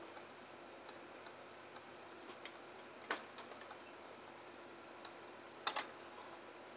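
Faint hiss with scattered small clicks and ticks: a sharper click about three seconds in and a quick double click near the end.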